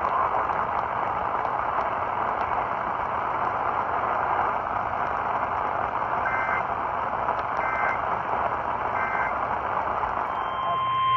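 Steady radio static hiss, with three short evenly spaced two-tone data chirps of an EAS SAME alert header. Near the end the steady 1050 Hz NOAA Weather Radio warning alarm tone sounds loudly, marking the start of a weather warning broadcast.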